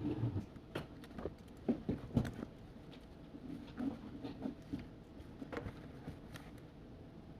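Study café room tone: a steady low hum with a scatter of light, irregular knocks and taps, several close together in the first couple of seconds and more a little later.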